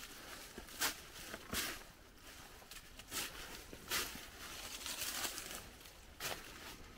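Footsteps crunching through dry fallen leaves and twigs, at an uneven pace of roughly one step a second.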